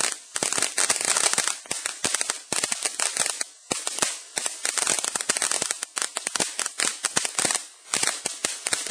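Firecrackers going off in a rapid crackle of sharp pops, coming in clusters with brief lulls between them.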